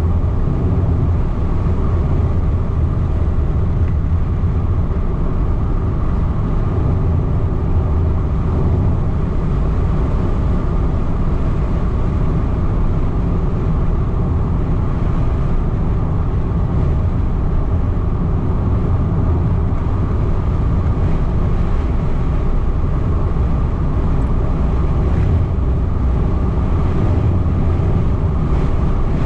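Car driving at a steady speed, heard from inside the cabin: a constant low rumble of tyres on asphalt and engine hum.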